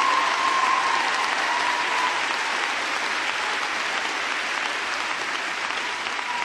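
Large audience applauding, the applause slowly dying down.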